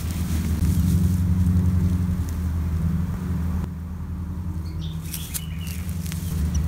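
Domestic calico cat purring close to the microphone: a steady, low, rapidly pulsing rumble.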